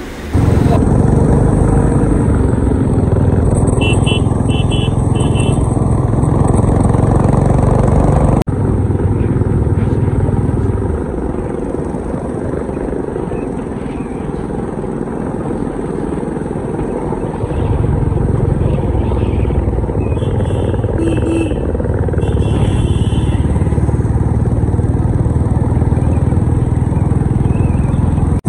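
Modified Royal Enfield motorcycle engine running as the bike is ridden, with a quieter, eased-off stretch in the middle before it picks up again.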